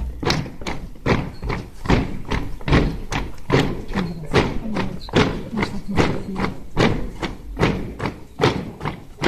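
A squad marching in step on paved ground, boots striking together in a steady, even beat of about two to three steps a second.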